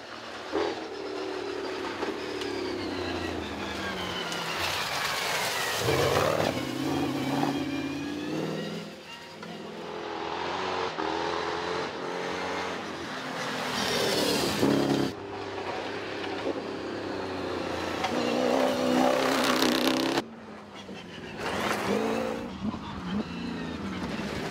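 Cross-country racing car's engine revving hard, its pitch climbing through the gears again and again, with the sound cutting abruptly several times between passes.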